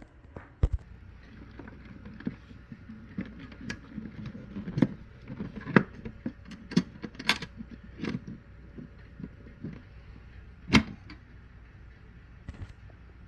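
Irregular clinks, knocks and scraping of the metal parts of a small folding charcoal camp stove being taken apart and packed away, with one louder knock near the end.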